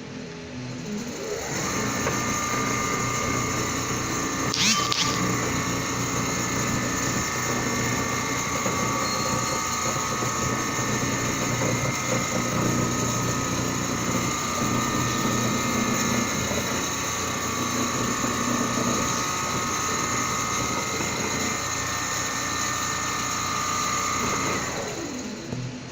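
Large computer-controlled sewing machine running steadily: a mechanical hum with a high steady whine from its drives. It starts about a second and a half in, has a brief squeak about four and a half seconds in, and dies away near the end.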